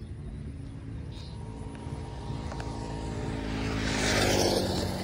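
A motor vehicle driving past: engine hum and tyre noise build up, peak about four seconds in, then begin to fade.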